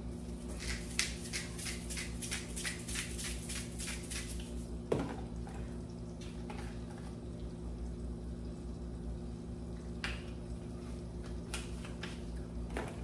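A seasoning shaker being shaken in quick rhythmic strokes, about three or four a second for some four seconds, followed by a single knock about five seconds in and a few scattered clicks, over a steady low hum.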